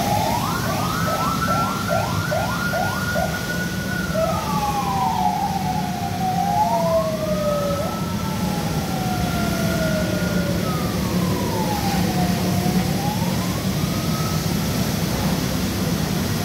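An emergency vehicle's electronic siren: a few seconds of quick rising yelps, then slow rising and falling wails that die away near the end, over a steady low rumble.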